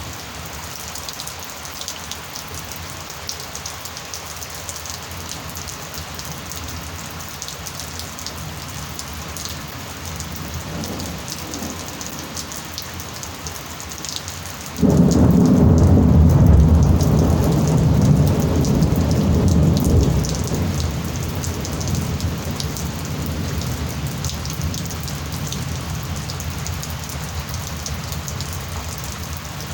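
Steady heavy rain falling throughout. About halfway through, a sudden loud crack of thunder breaks into a deep rumble that lasts several seconds and slowly fades, after a fainter distant rumble a few seconds before it.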